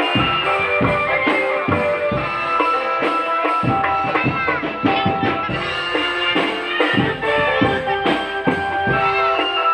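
Marching drum band playing: a beat of drum strikes under a held melody.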